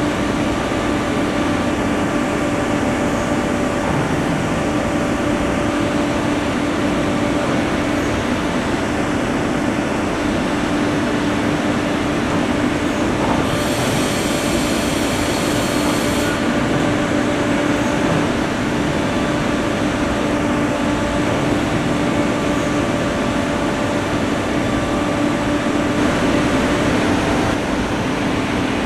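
Soraluce SP 8000 CNC bed-type milling and boring centre running with a steady mechanical hum, with a burst of hissing for about three seconds midway.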